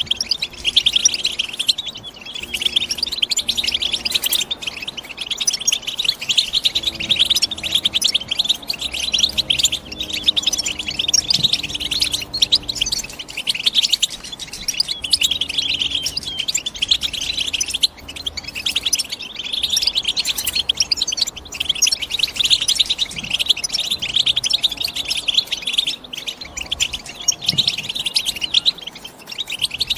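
European goldfinch singing: a continuous run of rapid, high twittering chirps and trills. Faint low steady tones sit underneath.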